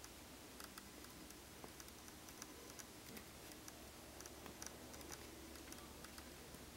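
Near silence: quiet room tone with faint, scattered light clicks coming irregularly.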